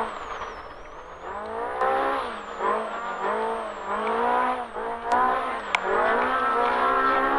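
Polaris RZR Pro R UTV's four-cylinder engine at racing speed, heard from on board. The revs rise and fall over and over, then hold steady and high for the last second or so.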